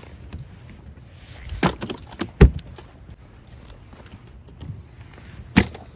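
Several sharp knocks and thumps, the loudest about two and a half seconds in and another a little before the end, while a caught catfish is handled next to a plastic cooler.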